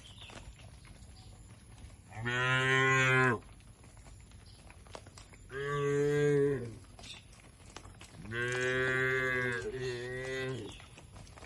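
Cow mooing three times, each a long low call, the third the longest and changing pitch partway through.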